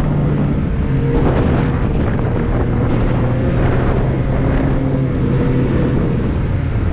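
Snowmobile engine running at a steady cruising speed, heard from on board the moving sled, with wind rushing over the microphone.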